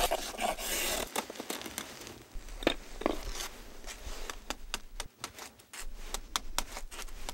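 A block of ice being shaved and chipped by hand to tune an ice instrument: a brief rasping scrape, then a run of sharp, irregular clicks and crackles of ice, coming thicker in the second half.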